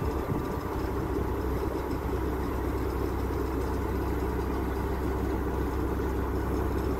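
Crane engine running steadily at idle while it holds a crash barrier section on its hook, an even low rumble with no changes.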